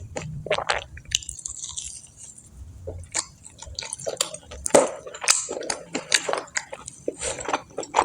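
A person chewing and biting crispy fried food close to the microphone: irregular crunches and mouth clicks, busier in the second half.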